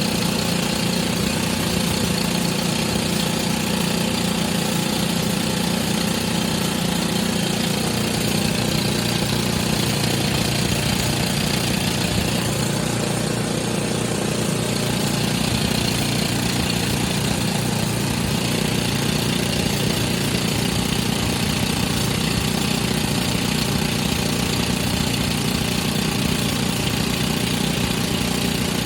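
Excavator-mounted drill machine running: a steady diesel engine drone with a dense mechanical noise over it, unchanging throughout.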